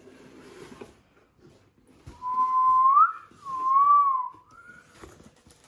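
A person whistling a short gliding phrase: a rise, a dip-and-rise, and a brief last note over about two and a half seconds. Before and after it come light rustles and knocks of a cardboard box being handled.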